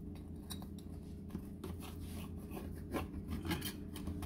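Kitchen knife cutting through baked pizza crust, its blade scraping and clicking against the perforated metal pizza pan in short, irregular strokes. A steady low hum runs underneath.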